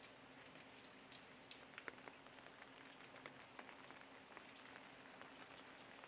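Near silence: a faint steady hum and hiss with scattered faint ticks.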